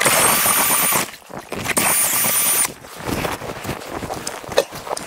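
A small electric motor like a cordless drill's runs in two short bursts of about a second each, its whine dipping briefly partway through the second. Scattered light knocks and scrapes follow.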